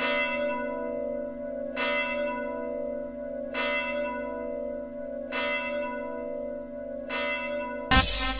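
A large bell tolling five times, a strike about every second and three quarters, each ringing on into the next. Music comes in loudly and suddenly near the end.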